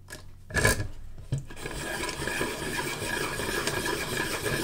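A Caran d'Ache hand-crank pencil sharpening machine cutting the wood of a coloured pencil as its handle is turned: a steady, dry grinding that sets in about a second and a half in, after a sharp click about half a second in.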